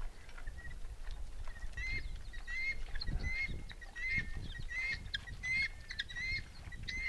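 Helmeted guineafowl calling: a run of short, repeated chirping notes, about two or three a second, starting about two seconds in.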